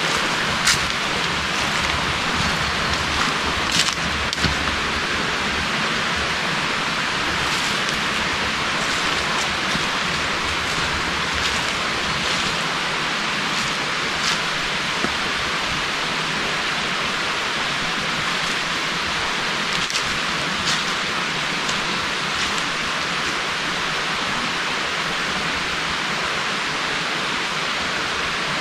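Steady rushing hiss of water, constant in level, with a few faint scattered ticks in the first half.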